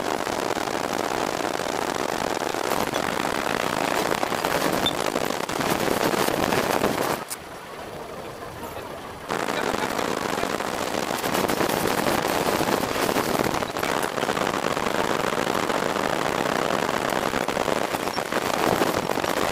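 Street go-kart ride audio played back sped up: a dense, rapid crackling clatter of small kart engines and traffic noise. It drops quieter for about two seconds partway through, then picks up again.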